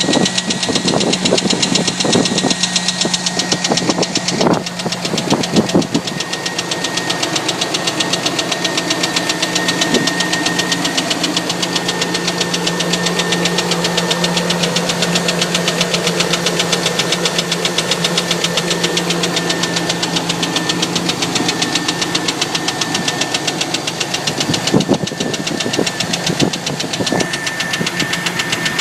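2000 Chevrolet Silverado engine running with a loud, rapid, steady ticking that the owner takes for a bad valve lifter, on a truck with 208,000 miles that still has good oil pressure. A few heavier thumps come through in the first few seconds and again near the end.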